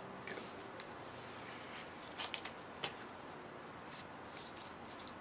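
Trading cards being handled on a table: soft brushing and sliding, then a quick run of three or four sharp taps a little over two seconds in and one more tap about half a second later.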